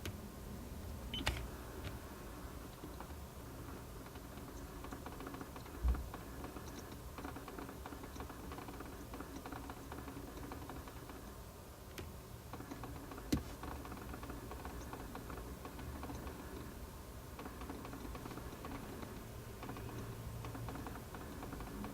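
Rapid, irregular clicking from behind the dashboard of a 17-series Toyota Crown, heard inside the quiet cabin, with three louder single clicks among it. The owner takes it for an abnormal noise from the air-conditioning switching (damper) motor.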